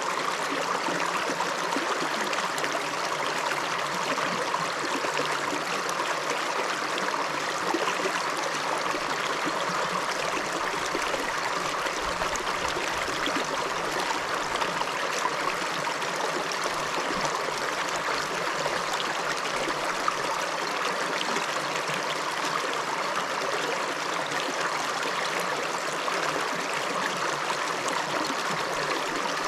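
River water rushing and trickling over stones in a steady, unbroken flow.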